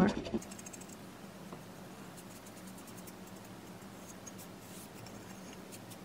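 Faint scratchy dabbing of a paint sponge on the edge of a wooden board, with a few light taps.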